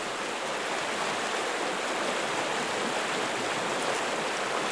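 Rio Grande river running over a rocky bed: a steady, even rush of flowing water.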